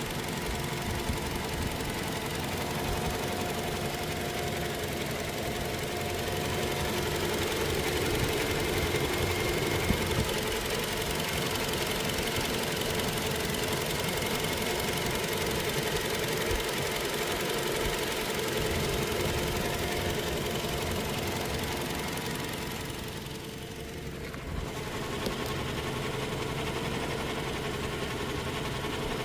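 Toyota Hilux diesel engine running steadily. This is the engine being checked for an unusual engine noise. The sound drops briefly about three quarters of the way through, then returns.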